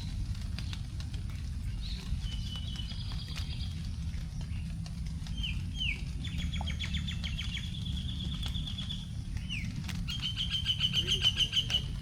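Forest birds calling after rain: fast trills of rapidly repeated high notes and a few short downward-slurred whistles, the loudest trill coming near the end. Scattered ticks of raindrops falling on leaves run over a steady low background rumble.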